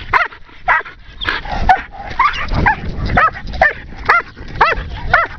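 Belgian Malinois barking and yelping in quick succession, about two high-pitched calls a second: the eager barking of a dog in bite training, worked up by the decoy with the bite sleeve.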